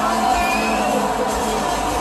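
Music played over a sound system, with the steady noise of a large outdoor crowd beneath it.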